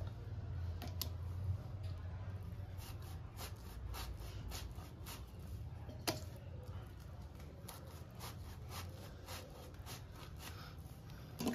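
Peeled raw young jackfruit being sliced thin on a boti, an upright floor blade: a series of short, crisp cutting clicks at an uneven pace, about one or two a second, with one louder click about six seconds in.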